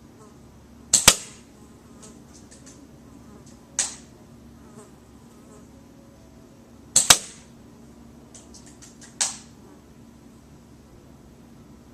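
MB03 bolt-action airsoft sniper rifle firing twice, about six seconds apart, each shot a sharp crack. Each shot is followed by a run of small clicks and a single sharp clack as the bolt is worked to cock and chamber the next BB.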